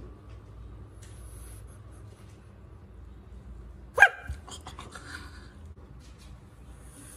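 A large frog gives one short, loud, yelping cry about four seconds in as it lunges at a fish held out to it. A few weaker calls and clicks follow over the next second or so.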